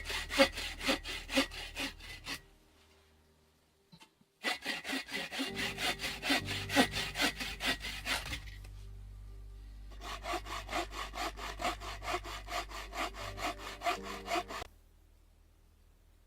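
Hand saw cutting through wood with quick back-and-forth strokes, about four a second, in three runs with short pauses between, stopping shortly before the end.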